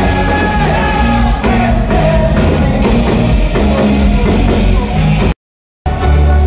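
Loud music with a steady beat. It drops out to silence for about half a second near the end, then resumes.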